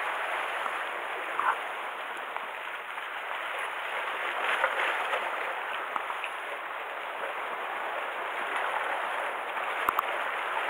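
Sea water washing and gurgling against shoreline rocks, a steady rushing wash that swells and eases. A single sharp click comes near the end.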